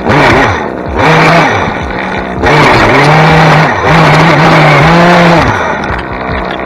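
Small two-stroke engine of a handheld tree-trimming tool revved hard in about four bursts, each lasting a second or so, dropping back toward idle between them.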